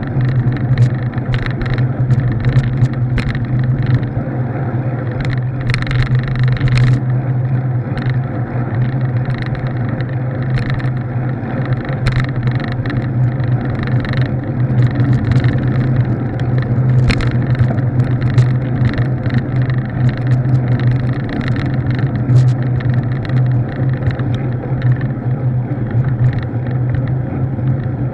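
Steady engine drone of a moving vehicle at constant speed, with road noise and frequent short sharp rattling clicks from the mounted camera.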